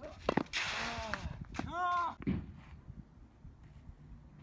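Tennis rally on a hard court: sharp pops of the ball off the racket strings and court, with two short voice calls in the first two seconds.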